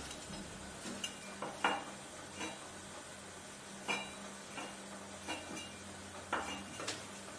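Chinese cleaver knocking lightly on a wooden chopping board at irregular intervals, about a dozen short knocks, as pickled chilies are split and their seeds scraped away. A faint steady low hum runs underneath.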